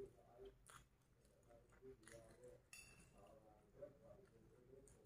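Faint chewing of a mouthful of fried instant noodles, with a few light clicks of a fork against the plate.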